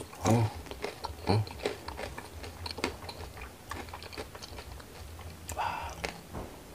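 Close-miked bites and chewing of a battered, deep-fried crispy mushroom: two loud crunches within the first second and a half, then steady small chewing clicks. A short breathy sound comes near the end.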